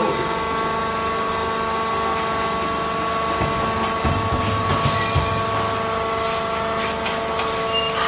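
Vertical fiber baler's hydraulic power unit running: a steady, even machine whine made of several fixed tones, with a few low knocks and clicks about halfway through as fiber is handled at the chamber.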